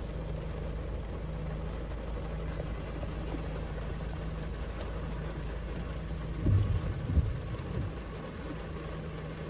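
Car engine idling with a steady low hum; a short, louder low rumble comes about six and a half seconds in.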